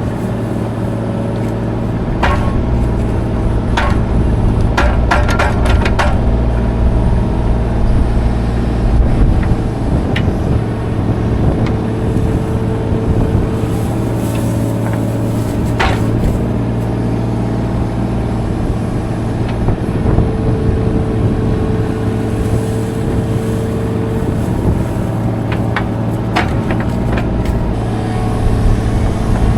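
Mini excavator engine running steadily while digging, with a higher hydraulic-sounding tone coming and going twice. Sharp metallic knocks and clanks from the bucket and arm come in clusters, most in the first few seconds and near the end.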